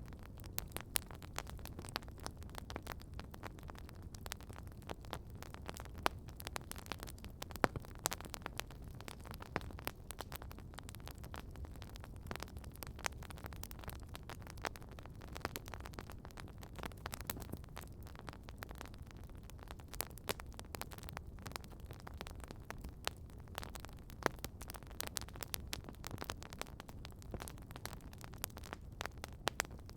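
Wood campfire crackling: many quick, irregular pops and snaps over a low, steady rumble of the burning fire.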